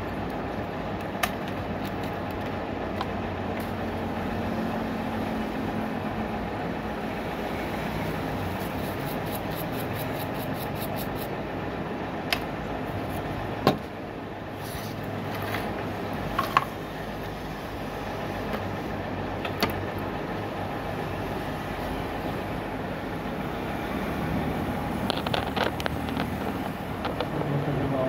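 Steady low background rumble, with a few sharp clicks and taps from metal tweezers and a spudger working inside an opened smartphone, heaviest near the end.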